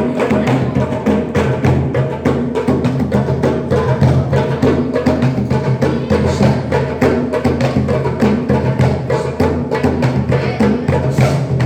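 Music played mainly on percussion: quick, dense drum strikes in a steady rhythm over a held low tone.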